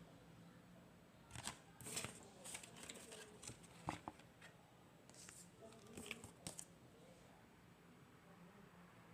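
Rustling and sharp clicks of a Blu-ray case and its packaging being handled, in a busy stretch from about a second and a half in to two-thirds of the way through, over a faint steady hum.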